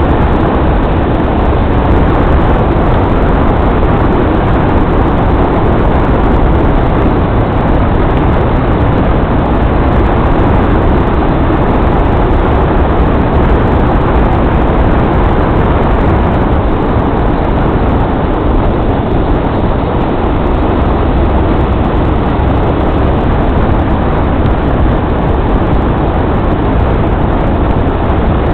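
Steady, loud, low rumbling road noise of a vehicle driving, unchanging throughout.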